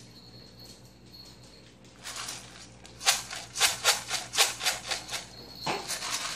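A quick run of about seven loud scuffing steps on a wooden floor, some three a second, starting about three seconds in, with one more scuff near the end.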